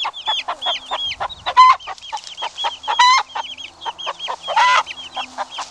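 Chicks peeping rapidly, several short high calls a second overlapping, with a few louder, longer cries about one and a half seconds in, at three seconds and near the end.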